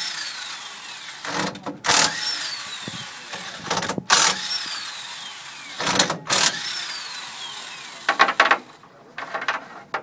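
Cordless impact wrench undoing a trailer's wheel nuts: four short, loud bursts about two seconds apart, one per nut, each followed by the motor's falling whine as it spins down.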